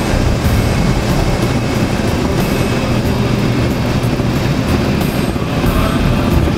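de Havilland Chipmunk's four-cylinder Gipsy Major engine and propeller running steadily at taxi power, heard from inside the cockpit as the plane taxis. It is a loud, even rumble with a lot of low-end.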